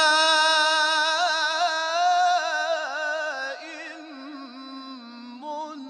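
A man's voice reciting the Quran in the melodic mujawwad style, drawing out one long, ornamented line with wavering trills. It is loud for the first three and a half seconds, then carries on more softly.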